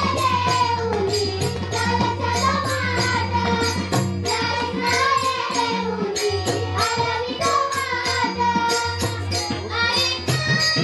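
Music: a voice singing a gliding, ornamented melody over a steady low drone, with regular percussion strokes.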